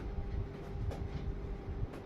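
Low rumbling and scraping of cardboard as a large sliding box is worked open, with a short click about a second in.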